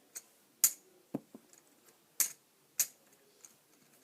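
Several sharp plastic clicks, about five at irregular intervals, as Lego pieces are handled and pressed.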